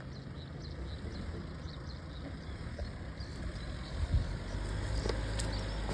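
Mahindra Thar 4x4's engine running, a low rumble that grows louder over the last couple of seconds, with a thump about four seconds in.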